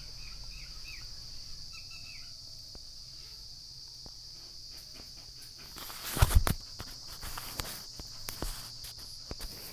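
Steady high-pitched insect chirring. About six seconds in comes a brief cluster of loud knocks, then a few scattered lighter clicks.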